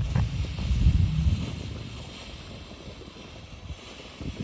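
Wind buffeting the microphone as a low rumble for the first second and a half, over the steady hiss of a fountain firework still burning.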